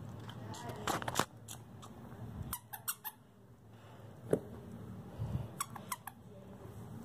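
Several short, high squeaks in small clusters, mixed with the rustle and knock of plush toys being handled on a carpet.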